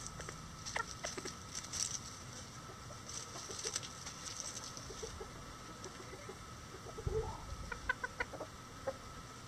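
Bantam chickens clucking softly, with a quick run of several clucks about eight seconds in.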